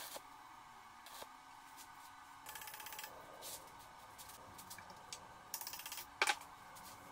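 A short crackle from a stick-welding arc at the very start, then two brief spells of fast metallic rattling and one sharp ringing metal clink about six seconds in, as the freshly welded drill bit and rod are handled with pliers.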